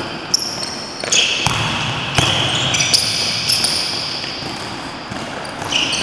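Basketball shoes squeaking on the sports-hall court floor, several short high squeaks, mixed with a few thuds of the ball bouncing and echoing in the hall.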